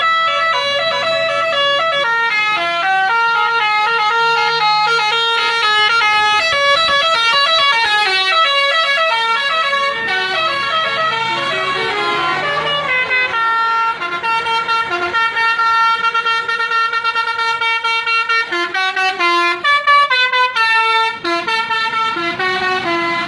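Telolet basuri musical bus horn playing a tune. It runs as a quick string of stepped horn notes, then holds one long note for about five seconds from about 13 seconds in, then plays short choppy notes near the end.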